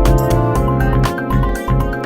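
Music with held notes over a bass line and a steady beat.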